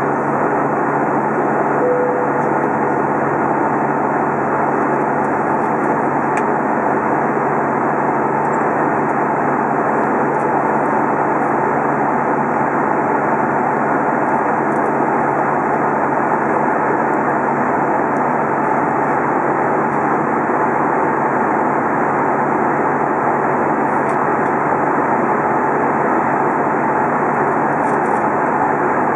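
Steady cabin noise inside an Airbus A320 in flight: the jet engine and rushing airflow heard as an even hiss with a low hum under it.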